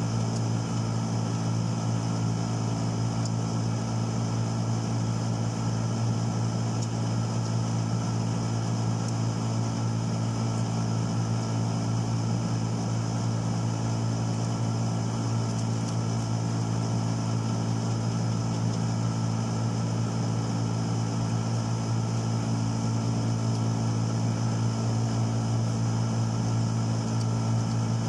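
Steady machine hum of a running motor or engine, unchanging in pitch and level throughout.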